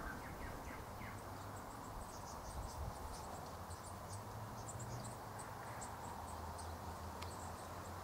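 Faint, scattered, very high-pitched chirps over a low steady hum: outdoor background chirping.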